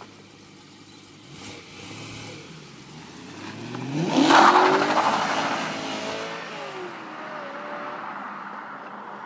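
BMW M3 convertible's V8 pulling away hard. The engine note rises to its loudest about four seconds in, then drops and climbs again through upshifts, fading as the car drives off.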